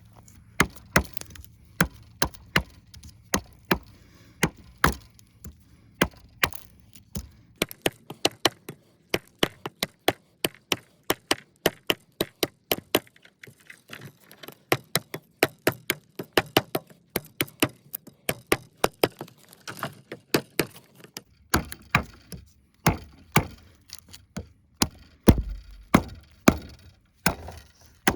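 A large fixed-blade knife, a 7.5-inch CPM-3V Bark River Tope Recon, chopping wood: a long run of sharp, quick strikes, about two or three a second, with a few heavier thuds near the end.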